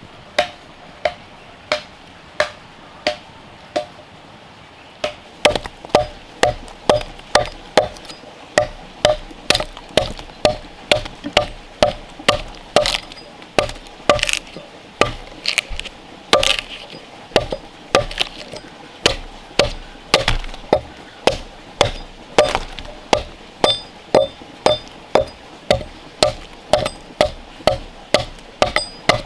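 Repeated blade strokes chopping into a wooden log, each a sharp knock with a short ring. The strokes come slowly at first, stop briefly about four seconds in, then pick up to a steady rhythm of about two a second.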